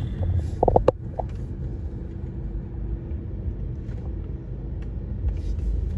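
Steady low rumble of a car driving, heard from inside the cabin: engine and tyre noise. A few short knocks come about a second in.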